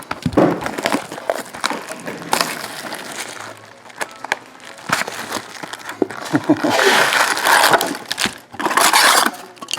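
Trading card packaging being handled and torn open: crinkling wrappers and cardboard, with scattered clicks and two longer stretches of crinkling in the second half.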